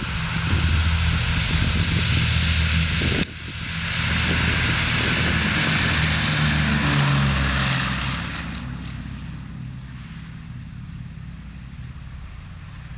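Boeing B-17 Flying Fortress's four Wright R-1820 Cyclone radial engines at full takeoff power, swelling as the bomber rolls past and dropping slightly in pitch, then fading as it climbs away. A sharp click and sudden drop in level about three seconds in.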